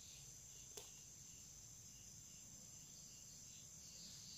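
Near silence: faint background chirping of crickets, with one light click about a second in.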